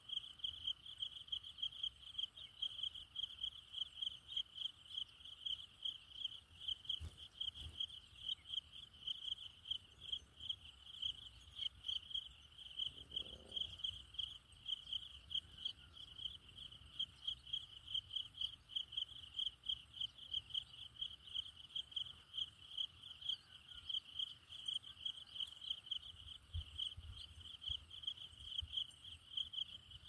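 An insect, cricket-like, chirping steadily: one high-pitched note pulsed evenly about three times a second.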